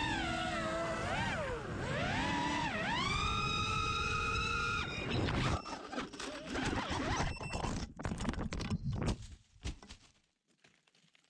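Brushless motors and propellers of a 5-inch racing quadcopter whining, rising and falling in pitch with the throttle. The whine cuts out about five seconds in as the quad goes into a pine tree, followed by a few seconds of rustling and clicking as it brushes through the branches.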